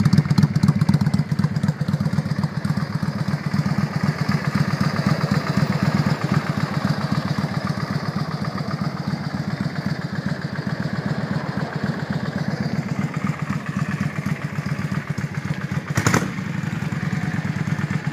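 Yamaha V Star 650's carbureted 649cc V-twin running at a steady idle through Vance & Hines slash-cut exhaust pipes. A single sharp knock is heard near the end.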